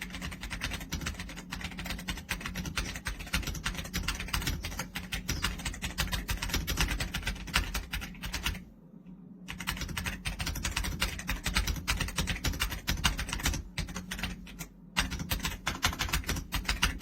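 Fast typing on an RK Royal Kludge R75 gasket-mounted mechanical keyboard: a dense run of key clicks that breaks off for a moment about halfway through and twice briefly near the end.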